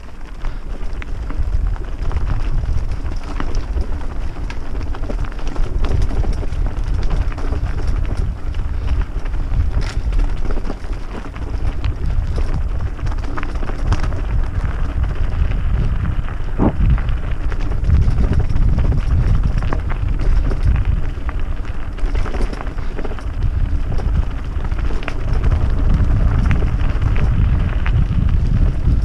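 Mountain bike rolling over a gravel dirt track, with tyres crunching on loose stones and scattered knocks and rattles from the bike. Wind rumbles heavily on the action camera's microphone throughout.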